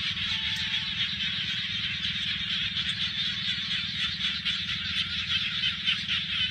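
Dense chorus of many frogs calling at once, a steady, high, rapidly pulsing din, over a low rumble of wind on the microphone.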